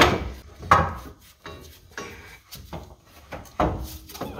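Steel front coil spring being handled into the suspension: a few irregular knocks of metal on metal with scraping between, loudest at the start and about a second in, with another knock near the end.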